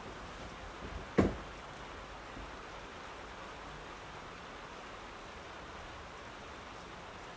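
Steady rain falling, an even hiss, with one short, sharp thump about a second in that is louder than the rain.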